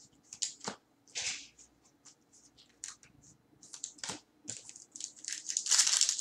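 Trading cards clicking and sliding against each other as they are handled, then from about five seconds in, the loud crinkle and tear of a clear plastic card-pack wrapper being ripped open.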